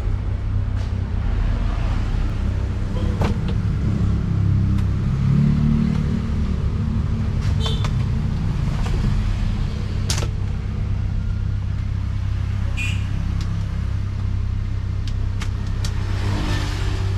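Car on the move: a steady low rumble with a few faint clicks scattered through it.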